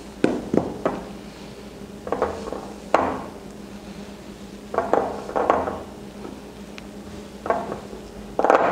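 Silicone spatula scraping and knocking against a glass mixing bowl while flour is stirred into a wet potato dough, in about five short bursts of strokes with pauses between, over a faint steady hum.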